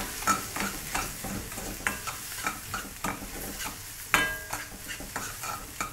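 Metal ladle stirring and scraping a spice masala frying in a steel balti pan, with steady sizzling under repeated short scrapes and knocks. A little past four seconds in, the ladle strikes the pan with a ringing clang.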